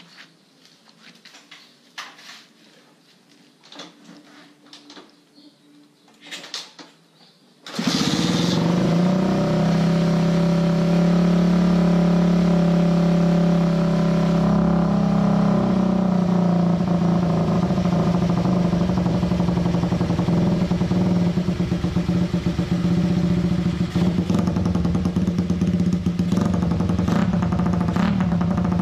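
Honda Sonic 125 single-cylinder motorcycle engine catching suddenly about eight seconds in, then idling steadily. It is a cold start after the bike has stood parked for a long time, and the engine is being run to warm it up. Before it starts there are only a few light clicks and rustles.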